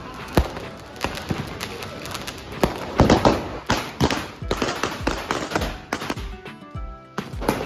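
Firecrackers going off: many sharp bangs at irregular intervals, thickest about three seconds in, with background music.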